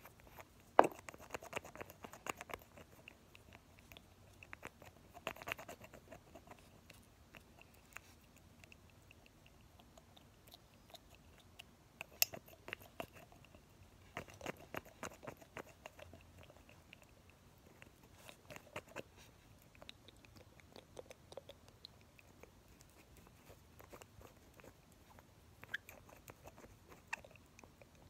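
Nail polish bottles worked close to the microphone, the brushes pumped in the bottles and the caps handled, giving clusters of small clicks and taps with short gaps between. The sharpest click comes about a second in.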